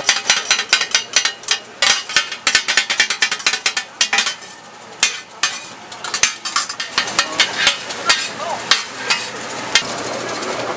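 Metal spatulas clattering and scraping rapidly on a hot griddle as food is stir-fried. The clatter eases off about four seconds in and picks up again a couple of seconds later.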